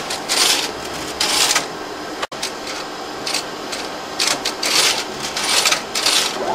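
Plasmon D Series optical disc library's robotic handler moving disc trays during its offset routine. About six short whirring, clattering motor runs come over a steady machine hum.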